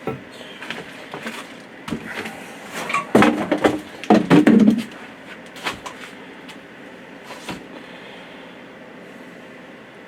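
Handling noises from parts and tools: scattered knocks and clatters, with a loud burst of clunks about three to five seconds in, over a steady background hiss.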